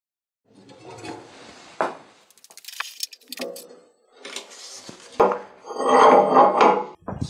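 Metal clinks and knocks of a bench vise being worked as a rusty cleaver blade is clamped in it. A sharp metallic clank comes about five seconds in, followed by a louder second or so of rattling metal-on-metal noise.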